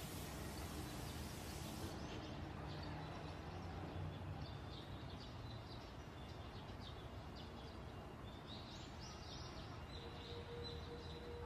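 Faint outdoor background noise with small bird chirps scattered through it from about two seconds in.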